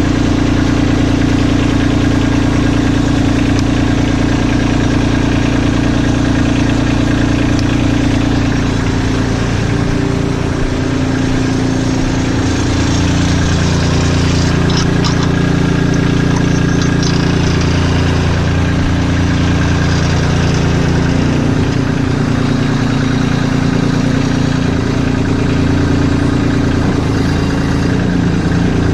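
Kubota LX2610 tractor's three-cylinder diesel engine running steadily, its tone shifting several times as the front loader's hydraulics are worked.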